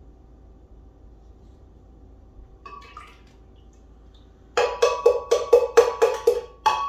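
Coconut water poured from a measuring cup into a blender jar, splashing in a quick run of glugs, about four a second, starting about four and a half seconds in. Before that only a faint steady hum.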